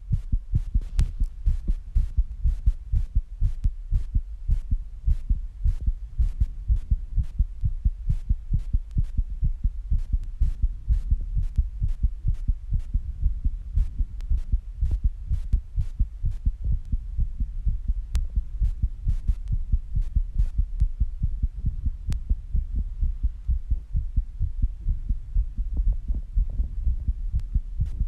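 A person's heartbeat, beating very fast in a quick, regular run of low thumps: the heart racing after squats and rebreathing.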